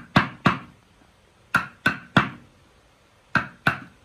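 Wooden mallet striking a chisel as it cuts into timber: sharp knocks in quick groups of two or three, seven strokes in all.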